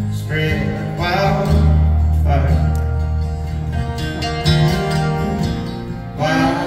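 Acoustic guitars strumming an instrumental passage in a country-folk song, chords struck every second or two over low bass notes that ring on.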